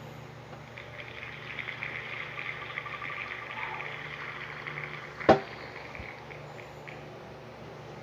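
Spinning name-picker wheel's ticking sound effect: rapid clicks that thin out and slow as the wheel comes to rest. A single sharp click about five seconds in is the loudest sound.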